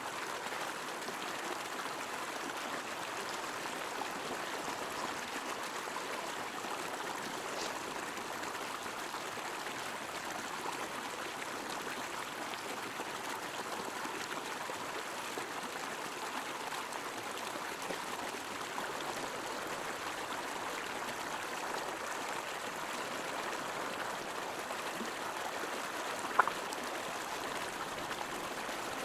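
River water flowing steadily, a continuous even rush of a stream current. A single sharp click sounds near the end.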